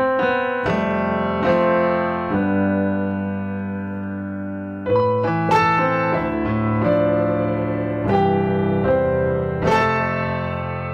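A piano sound played on a studio MIDI keyboard: a slow melody over held chords, with new notes and chords struck every half second to a second and a half. Around the middle there is a longer held chord before the line picks up again.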